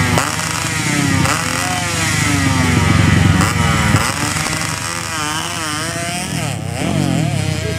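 Underbone grasstrack motorcycle engine being revved in repeated throttle blips, its pitch sweeping up and falling back again and again.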